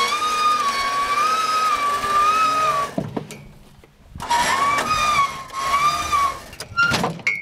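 Winch motor whining under load as it hoists an elk carcass on a chain, its pitch wavering; it stops about three seconds in and starts again about a second later, and a few sharp clicks follow near the end.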